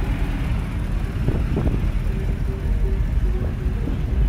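Engine of a lifted six-door Ford truck running as it rolls slowly past, a steady low rumble.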